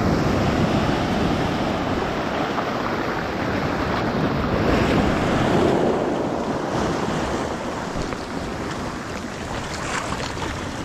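Sea swell breaking and washing over the shore, with wind buffeting the microphone. The surf swells louder around the middle and eases a little near the end.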